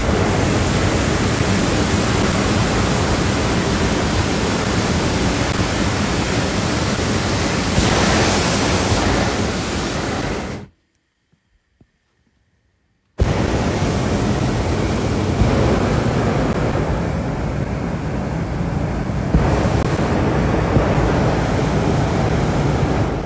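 Hot air balloon's propane burner firing, a loud steady rushing noise. It cuts out for about two seconds around the middle, then starts again.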